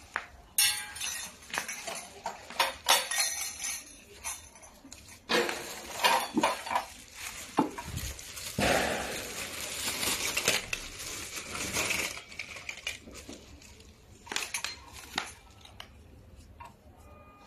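Small metal candelabra fittings clinking and clattering against each other as the plastic bag holding them is handled and opened, with stretches of crinkling plastic. The clatter is irregular and stops a couple of seconds before the end.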